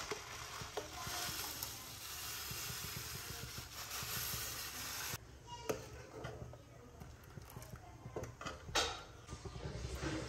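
Payasam cooking in a pan of boiling milk on a gas stove: a steady hiss for about the first five seconds while the mix goes in, cutting off suddenly, then a metal ladle stirring with light clinks against the pan and a louder knock about nine seconds in.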